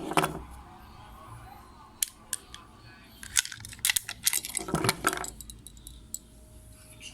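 Sharp metallic clicks and clatter of a small 9 mm blank-firing pistol being handled and taken apart. The clicks are scattered, with a quick run of them from about three and a half to five seconds in.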